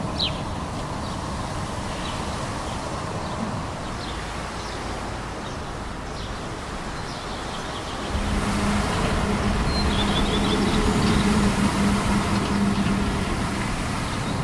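Steady vehicle noise. About halfway through it gets louder, with a low steady hum that holds for several seconds, as of a vehicle's motor close by.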